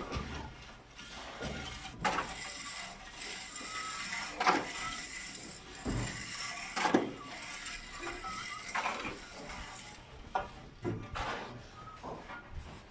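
Irregular clattering and scraping of hand work, with sharp knocks scattered through it, several of them louder, around two, four and a half, six and seven seconds in.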